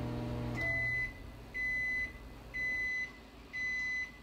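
Microwave oven beeping: four steady high-pitched beeps, each about half a second long, about a second apart.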